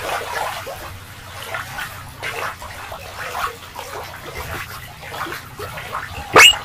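Shallow water lapping and splashing against shoreline rocks, an uneven run of small splashes. Near the end comes one brief, loud sound that rises sharply in pitch.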